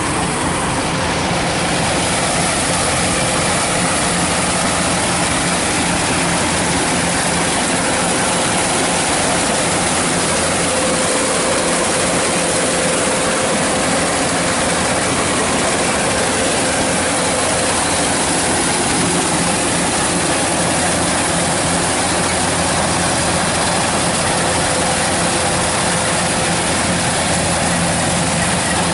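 Kubota DC-105X combine harvester running steadily while cutting rice, its engine and threshing machinery making a constant loud mechanical din with a steady hum.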